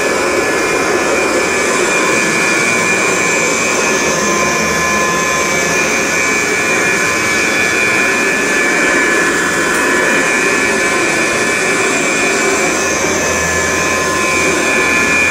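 Kirby 517 upright vacuum cleaner running steadily while vacuuming a carpeted floor: a constant motor-and-fan rush with several steady high whines from its metal ten-blade fan.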